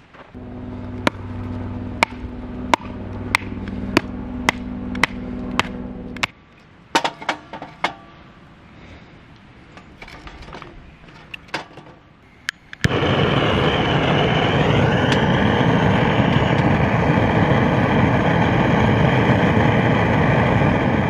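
Split firewood clacking as pieces are laid in a stainless steel fire stand, then about 13 seconds in a cassette gas torch on a butane can is lit and runs with a loud, steady rushing hiss.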